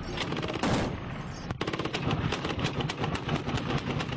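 Bursts of automatic machine-gun fire, many rounds a second, with a short break about one and a half seconds in.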